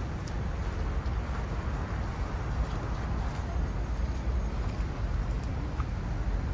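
Steady city street traffic noise: cars running and moving along a busy road, with a deep low rumble underneath.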